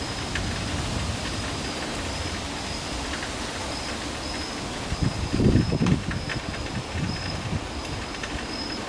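Steady outdoor background noise with low rumbling, ahead of an approaching severe thunderstorm; about five seconds in, a louder low rumble swells for about a second. A faint, high, thin tone comes and goes in short runs.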